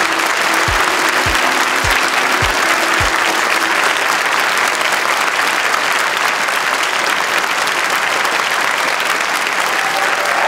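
Audience clapping steadily. In the first three seconds the closing beats of theme music sound under it: deep drum thuds a little over half a second apart with a few held notes, which then stop.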